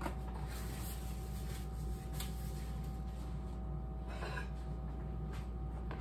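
Quiet kitchen room tone: a steady low hum with a faint steady tone above it, and a few soft clicks of movement.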